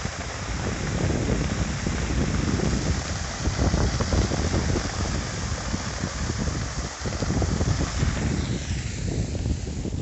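Waterfall rushing steadily, mixed with wind buffeting the microphone. The rush thins somewhat near the end.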